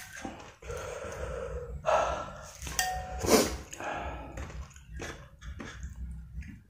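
Close-up eating sounds from a man eating a bowl of very spicy noodle soup: heavy breathing through the mouth while chewing, with a few sharp clicks of a metal spoon against the ceramic bowl.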